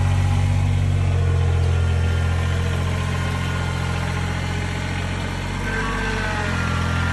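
Kubota BX compact tractor's small three-cylinder diesel engine running steadily at low speed while the tractor drives, easing slightly in level about five seconds in. A faint whine sliding in pitch joins it near the end.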